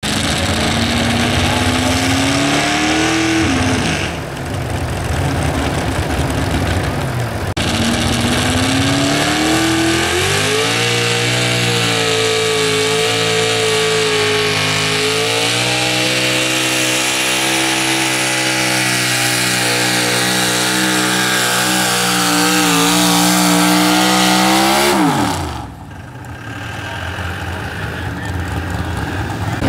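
Super stock two-wheel-drive pulling truck, a red Ford Ranger, running at full throttle under load while dragging the weight sled. The revs climb in the opening seconds and dip briefly. They climb again and hold high and steady for about fifteen seconds, then the pitch falls sharply about twenty-five seconds in as the driver comes off the throttle at the end of the pull.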